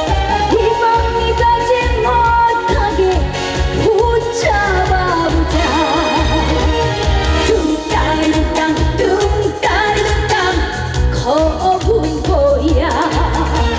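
Live trot song: a woman's voice sung with heavy vibrato and bending notes over a band backing with a steady, pulsing bass beat.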